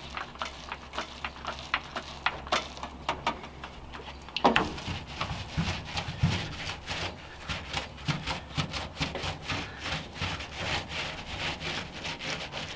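Heavy-nap paint roller rolling thick rust encapsulator paint over a steel car floor pan: a repeated tacky rubbing and scraping as it goes back and forth. A knock about four and a half seconds in, after which the strokes come thicker and faster.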